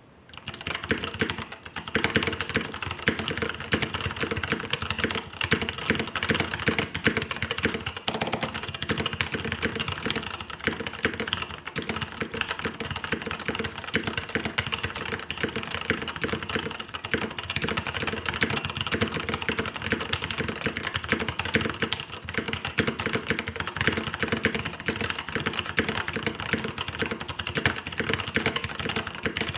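Fast, continuous typing on a custom mechanical keyboard with 67g Zealio tactile switches, an aluminium top plate and blank PBT keycaps: a dense stream of key clacks that starts about half a second in and never pauses.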